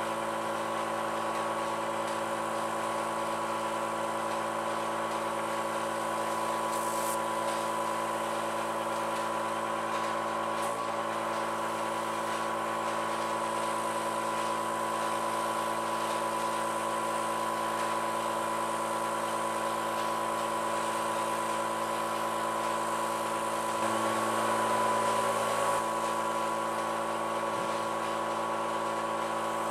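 Small air compressor running with a steady hum, along with the hiss of an airbrush spraying paint; the sound swells a little for a couple of seconds near the end.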